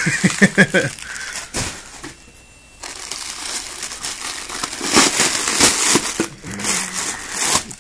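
Plastic packing bags crinkling and rustling as hands dig through them in a cardboard box, with a short lull about two seconds in before the crinkling picks up again.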